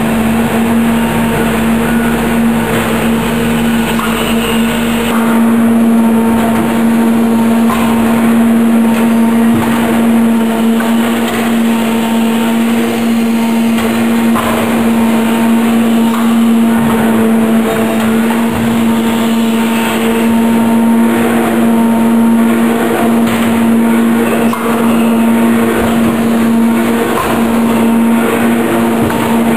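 Automatic wood shavings baler with form, fill and seal unit running: a loud, steady machine hum with irregular clattering and knocking over it.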